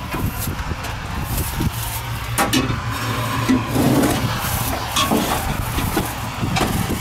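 Footsteps crunching over dry straw stubble, with wind rumbling on the microphone and a few irregular knocks.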